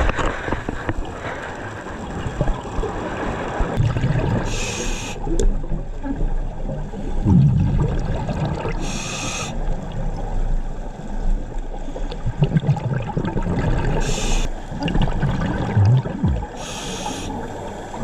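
Scuba diver breathing underwater through a regulator: short hissing inhalations about every four to five seconds, alternating with gurgling rumbles of exhaled bubbles.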